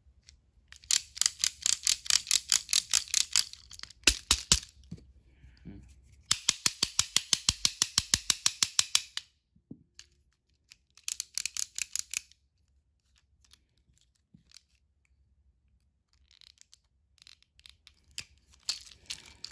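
Battery-powered toy Thomas engine being tested: rapid, even clicking, about eight clicks a second, in three runs of a few seconds each. It is the sound of an engine that is not working properly.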